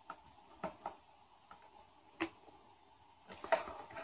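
Plastic film being handled and peeled: a few soft clicks, then a longer crackling rustle near the end as a backing sheet of a TPU screen protector is pulled away.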